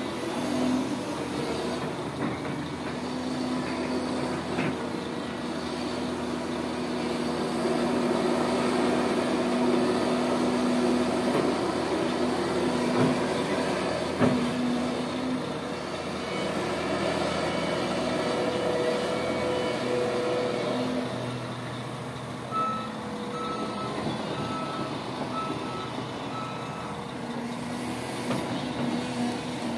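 Cat 330 GC hydraulic excavator's diesel engine running under load, with hydraulic working noise as it digs, swings and dumps soil into a tipper truck, and a couple of sharp knocks around the middle. Past the middle a backup alarm beeps about six times.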